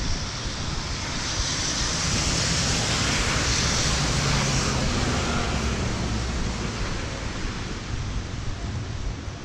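A bus passing close on a wet road, its tyres hissing through the water, swelling over the first few seconds with a low engine rumble and then slowly fading. Under it, steady rain on an umbrella and some wind on the microphone.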